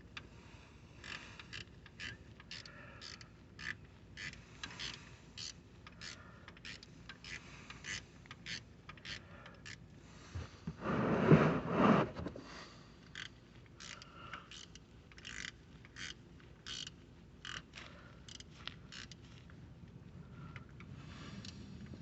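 Wrench working a car's oil drain plug loose: irregular small metal clicks and scrapes, with one louder scraping noise lasting about a second and a half near the middle.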